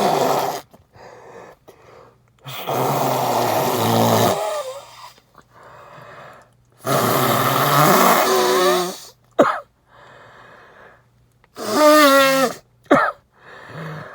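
Heavy, wet nose blowing by a man with a badly congested head cold: long blasts of about two seconds each, twice, with a short sharp burst after. Near the end comes a loud voiced sound that glides in pitch.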